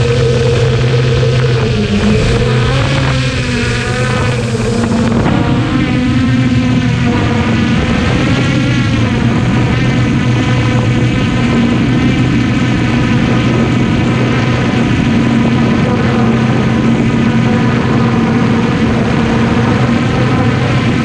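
Traxxas Aton quadcopter's electric motors and propellers whining, heard from a camera mounted on the drone itself. The pitch wavers up and down in the first several seconds as the drone climbs and turns, then holds steadier.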